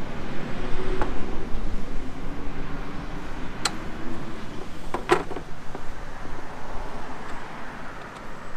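Wind noise on the microphone with a faint passing engine hum, and a few sharp knocks of a wooden board being handled on a table saw, the loudest a quick double knock about five seconds in.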